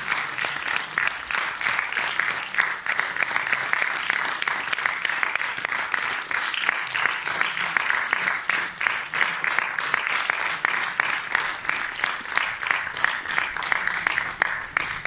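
A theatre audience applauding: dense, steady clapping from many hands.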